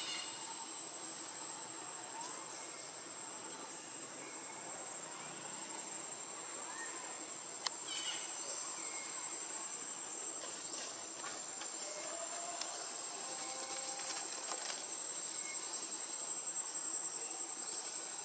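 Steady high-pitched insect drone, with a few faint chirps and one sharp click about seven and a half seconds in.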